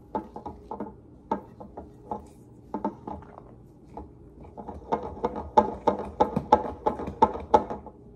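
A mixing utensil stirring a thick dip in a large glass bowl, knocking and scraping against the glass in repeated strokes. The strokes grow faster and louder about five seconds in, at about three a second.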